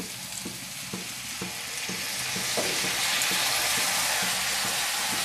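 Spiced banana-flower mixture sizzling in hot oil in a wok, the sizzle growing louder about two seconds in as a bowl of Gobindobhog rice is tipped into the pan.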